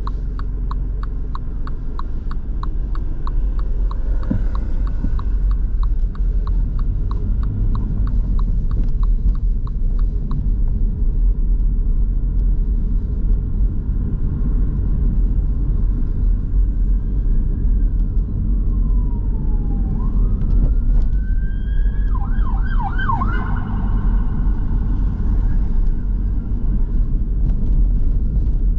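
Car cabin with steady road and engine rumble, the turn indicator ticking about twice a second for the first ten seconds. Past the middle an emergency-vehicle siren sounds, a slow wail falling and rising, then switching to a fast yelp for a couple of seconds.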